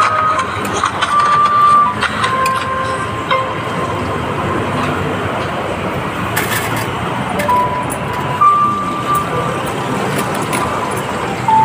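Steady street traffic noise, with a thin, slow melody of held high notes playing from a phone's speaker.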